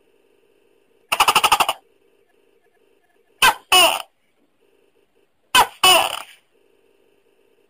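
Tokay gecko calling: a rapid rattling chuckle about a second in, then two loud 'to-kek' calls, each a short note followed by a longer one that falls in pitch.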